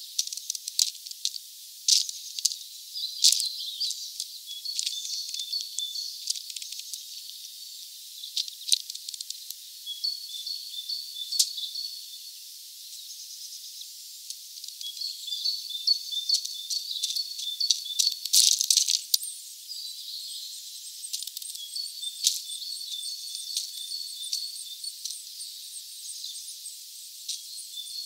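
Pigeon pecking at sunflower seeds in a feeder tray: irregular sharp clicks and cracks of beak on seed and husk, the loudest cluster about two-thirds of the way through. Behind it a faint high trill comes and goes several times.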